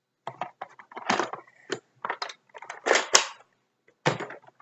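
A run of irregular plastic clicks and clacks from a Nerf blaster being handled and worked, with a louder, sharper snap about three seconds in.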